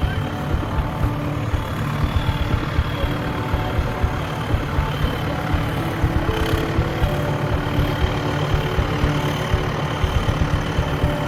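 Tractor engine running steadily, with a low pulsing rumble.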